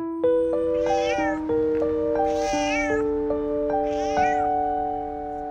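A tabby cat meowing three times, each meow a drawn-out call about half a second long, over slow background piano music with long held notes.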